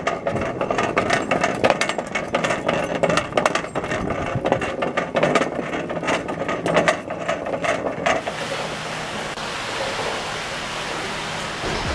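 Mechanical tool work on a car: dense, irregular clicking and clattering of metal tools for about eight seconds, giving way to a steadier hiss.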